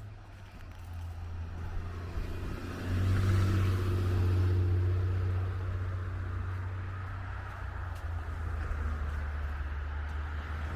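A motor vehicle driving past on the street. The low engine rumble swells to its loudest about three to five seconds in, then eases off but stays steady.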